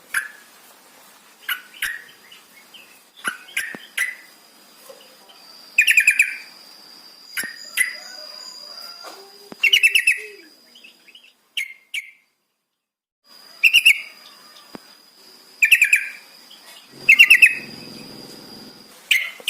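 Yellow-vented bulbul calling: short bursts of rapid, bright chattering notes, repeated about every two seconds, with a faint steady high-pitched tone behind. The sound drops out completely for about a second in the middle.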